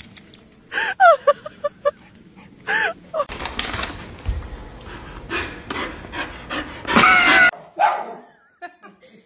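A dog whining and yipping: several short high cries in quick succession about a second in, and a louder wavering whine about seven seconds in, with a stretch of rough noise between them.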